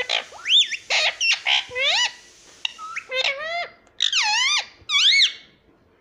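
Indian ringneck parakeet giving a rapid series of about eight loud, high-pitched calls, each sliding up and down in pitch, stopping shortly before the end.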